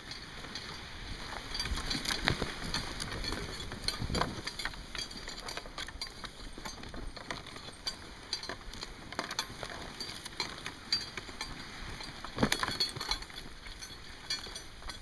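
Dog sled running along a snow trail behind a running dog team: a continuous rushing noise with scattered knocks and rattles from the sled, a few louder ones about two, four and twelve seconds in.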